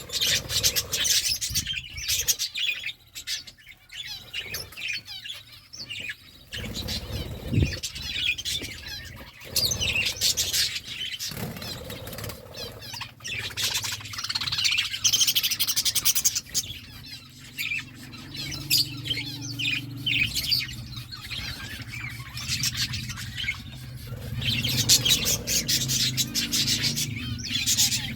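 Pet parakeets chirping and chattering continuously, a busy flock of quick, high calls.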